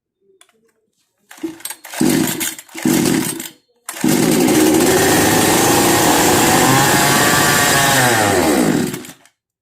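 Kisan Kraft 58 cc two-stroke chainsaw: a few pulls on the recoil starter, then the engine catches on choke with petrol poured into the cylinder. It runs for about five seconds, sags in pitch and suddenly dies: it will start on the primed fuel but won't keep running.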